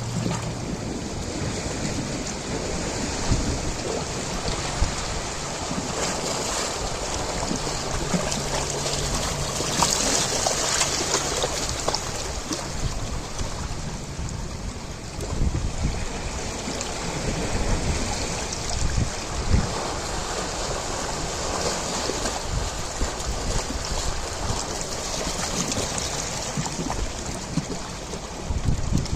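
Ocean waves breaking and washing up a shore: a continuous surf with surges about a third of the way in and again near the end.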